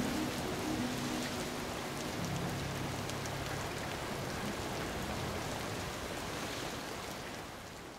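Steady hiss of falling or flowing water, with a faint low hum in the first few seconds. It fades out at the very end.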